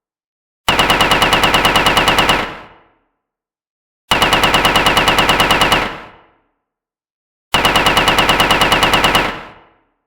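Automatic gunfire sound effect: three identical bursts of rapid shots, about eight a second, each lasting under two seconds and dying away in a short echo, with silence between bursts.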